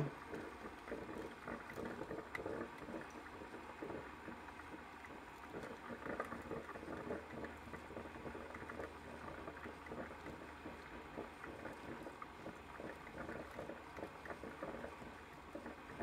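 Ninja drip coffee maker brewing: a faint, dense run of small irregular crackles and bubbling sounds over a low hum. It keeps brewing without stopping or beeping, a sign that clearing air from the water lines has fixed the 'five beeps' brewing fault.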